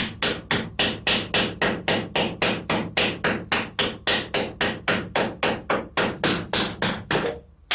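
Small hammer tapping the edge of a mussel shell in rapid, even strikes, about four a second, chipping it to break out pieces of mother-of-pearl.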